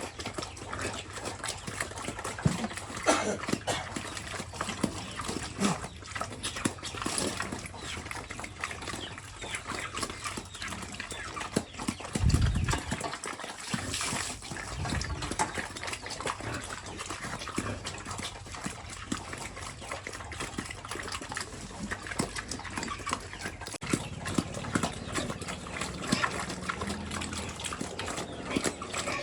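Pigs eating a wet feed of vegetables and rice: a steady, irregular stream of chewing and slurping, with a brief low thud about twelve seconds in.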